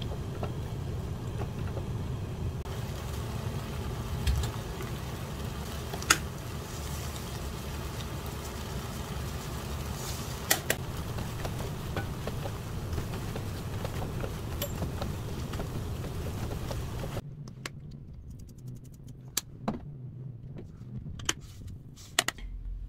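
Stir-frying in a pan with metal tongs over a steady low stove rumble, with a few sharp clicks of the tongs against the pan. About three-quarters of the way through it gives way to a quieter room with a few light clicks and taps.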